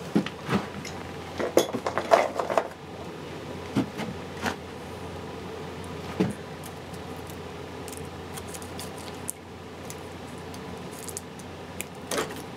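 Electrical cable and wire strippers being handled at a ceiling junction box: scattered clicks and light metallic clinks, busiest in the first three seconds, then a few isolated ones, over a steady background hum.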